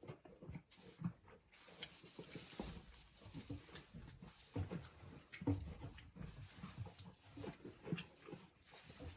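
Mother goat and her newborn kids moving and snuffling close by: a string of short, irregular soft sounds, with a steady hiss starting about two seconds in.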